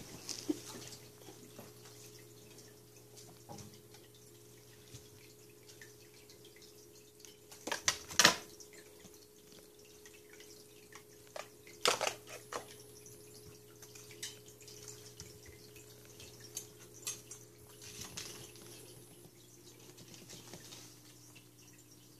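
Kittens playing with toys on a wooden floor: scattered sharp clicks and knocks, the loudest about eight seconds in and another about twelve seconds in, over a faint steady hum.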